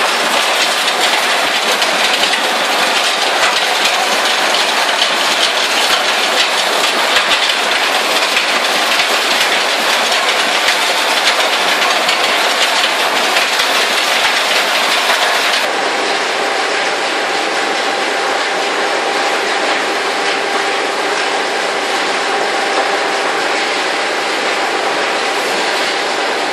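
Conveyor belt running on its return side over steel return idler rollers: a loud, steady rushing noise with fine rattling. About halfway through it changes abruptly to a slightly quieter sound with a steady hum underneath.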